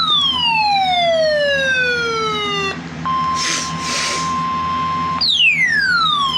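An alert tone sequence: a whistling, siren-like tone falls steadily in pitch for nearly three seconds and stops, then a steady single-pitch alarm tone near 1 kHz (the NOAA Weather Radio 1050 Hz warning alarm) sounds for about two seconds with two short hiss bursts over it, then another falling tone starts.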